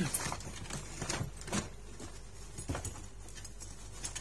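Handling noise: a few light clicks and knocks as a small metal slingshot trigger unit is picked up and turned over in the hand, the sharpest knock at the very start.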